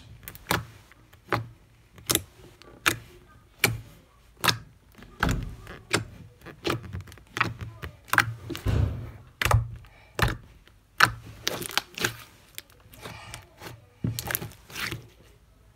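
Sticky blue slime clicking and popping as fingertips press and poke into it, trapped air snapping out in sharp clicks about two a second, unevenly spaced, with soft squishes between.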